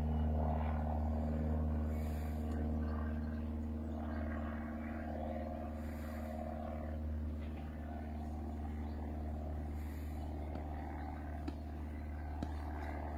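A steady low mechanical hum throughout, with a few faint clicks near the end.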